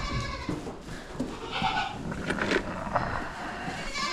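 Goats bleating, several separate calls, the strongest about one and a half seconds in.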